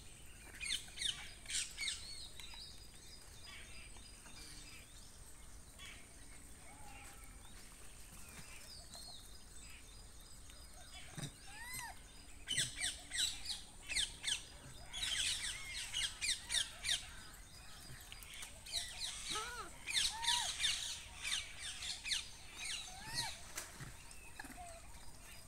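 Small birds chirping and twittering in repeated bursts of rapid high notes, with a few short lower calls in between.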